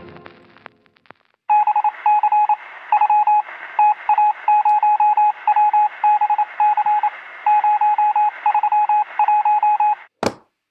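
Electronic beeping in irregular short and long pulses of one steady tone, over hiss and heard as if through a radio or telephone line. It starts about a second and a half in, stops about ten seconds in, and is followed by a brief sharp click.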